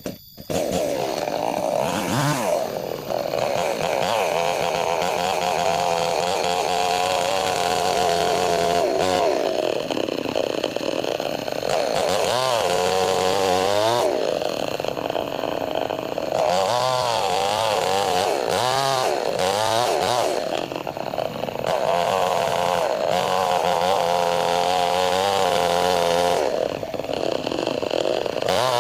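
Chainsaw starting up about half a second in, then running hard as it rips lengthwise through a log to split it. The engine pitch keeps wavering and dipping as the chain bites under load, then picks up again.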